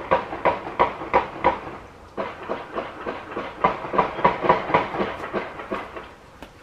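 Hands drumming on the top of a cardboard box and a dresser top, a steady beat of about three strikes a second, with a short pause about two seconds in before the drumming picks up again.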